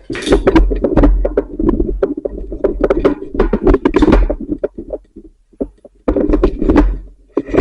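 Irregular run of thumps and knocks over a low rumbling handling noise, with a brief lull about five to six seconds in.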